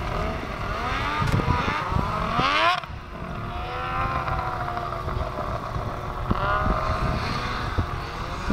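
Snowmobile engine revving up at high speed, its pitch climbing for about two seconds before dropping sharply about three seconds in, then running at a fairly steady high pitch with small rises and falls. A few short knocks sound over the engine.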